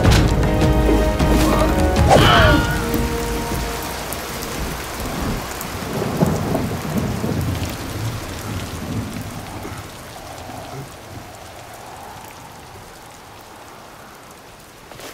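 Steady heavy rain with a low rumble of thunder a few seconds in, the storm dying away gradually. It opens on the ringing tail of loud music with a sharp hit about two seconds in.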